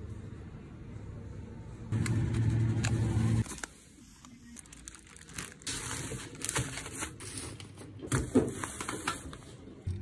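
A low steady hum that grows louder about two seconds in and cuts off abruptly a second and a half later. It is followed by thin plastic grocery bags rustling and crinkling as groceries are handled and taken out of them.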